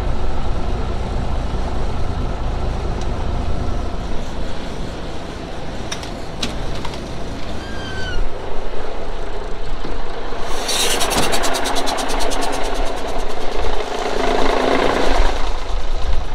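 Semi truck's diesel engine idling, heard as a steady low rumble from inside the cab, with a couple of light clicks about six seconds in. About ten seconds in, as the cab door opens, the engine's rapid, even clatter becomes much louder and harsher.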